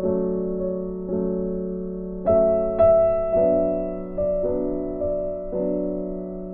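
Background music: a gentle piano tune, notes struck every half second to a second, each fading away.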